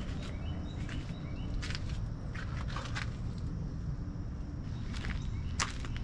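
Footsteps, a handful of irregular crisp steps, over a steady low hum.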